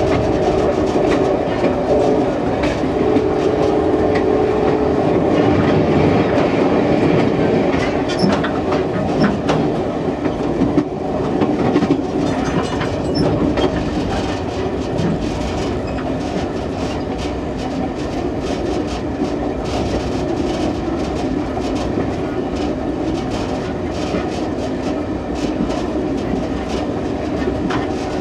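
Passenger train rolling along the track: steady running noise of wheels on rails, with a run of clicks from rail joints about a third of the way through.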